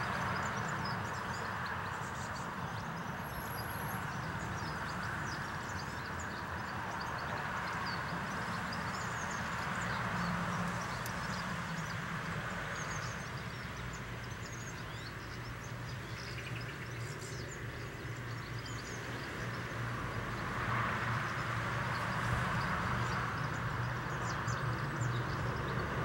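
Many short, high chirps of small garden birds over a steady low rumble and hiss of background noise, which grows a little louder near the end.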